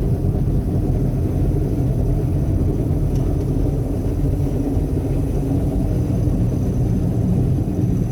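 Combine harvester running during the wheat harvest: a steady low rumble, with a faint high whine above it.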